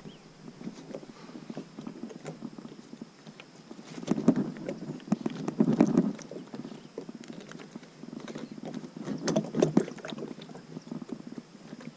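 Rope being threaded and tied to the bow handle of a plastic sit-on-top kayak, with irregular rubbing, scraping and knocking against the hull. It comes in two louder spells, about four seconds in and again near nine seconds.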